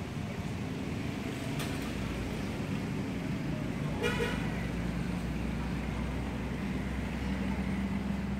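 Steady low hum of a running engine, with one short pitched toot about four seconds in, like a vehicle horn.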